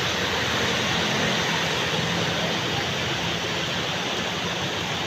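Heavy stormy rain pouring down steadily, a dense even hiss, with the low hum of traffic driving on the wet road underneath.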